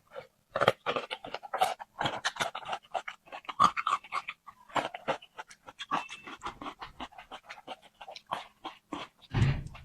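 Close-miked eating: a rapid, irregular run of crunching and wet mouth clicks from chewing, with a heavier low thump near the end.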